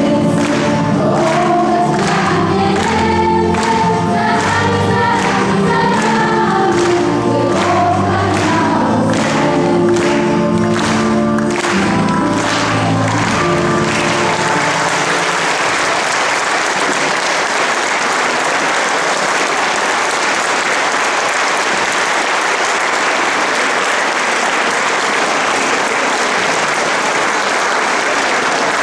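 Choir singing with music and a steady beat, which ends about halfway through. Sustained audience applause follows.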